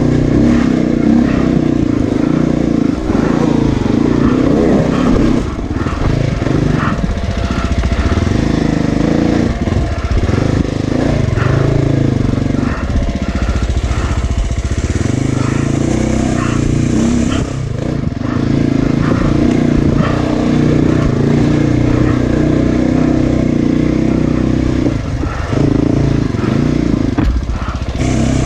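Off-road motorcycle engine running steadily while riding, its pitch shifting a little now and then.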